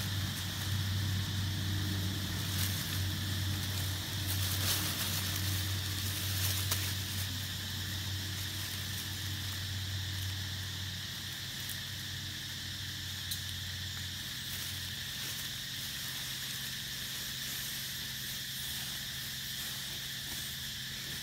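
Forest ambience: a steady high-pitched insect drone, with a low hum that fades out about eleven to fifteen seconds in. A few faint clicks come in the first several seconds.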